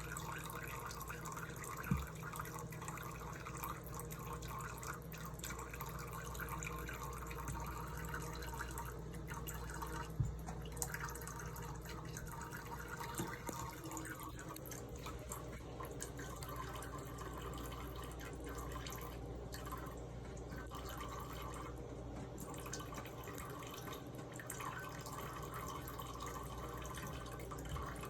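Water running from a tap into a sink in a steady, dripping trickle, with a sharp knock about two seconds in and another about ten seconds in.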